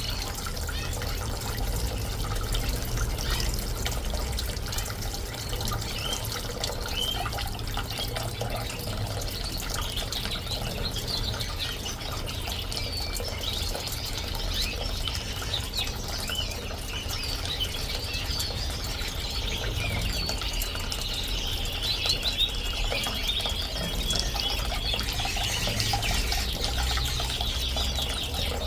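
Small bird-bath fountain splashing steadily, with a low rumble under it, while canaries and finches chirp throughout. The chirping grows busier partway through, and one bird sings a long fast trill near the end.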